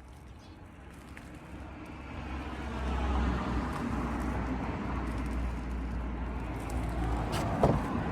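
A motor vehicle approaching at close range, its engine and tyre noise rising over the first three seconds and then holding steady. A short knock or clunk comes near the end.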